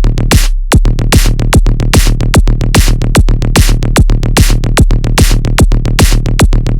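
Electronic dance music track with a fast, even beat over a sustained deep bass. The beat drops out briefly about half a second in, then comes back.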